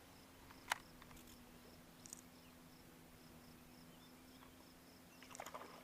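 Near silence: a faint steady hum under a faint high chirp that pulses about three times a second, with one sharp click under a second in and a few light ticks near the end.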